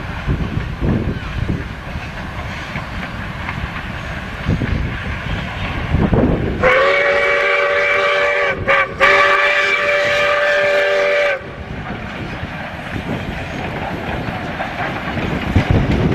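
Steam locomotive's chime whistle sounding two long blasts of several notes at once, the second following a brief break, over wind rumbling on the microphone.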